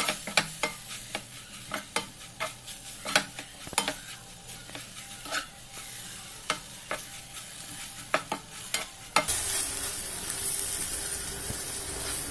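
Okra with spices and lemon juice being stirred in a pan, a utensil clicking and scraping against the metal over a faint sizzle. About nine seconds in, the clicks stop and a steady, louder sizzling takes over.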